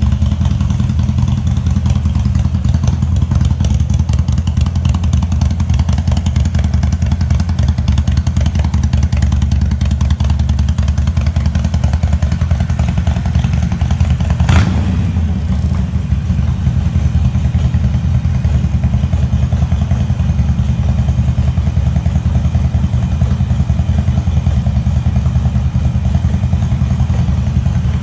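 Harley-Davidson Iron 883's air-cooled V-twin engine idling steadily through custom aftermarket exhaust tips, with a deep, even rumble. A single sharp knock sounds about halfway through.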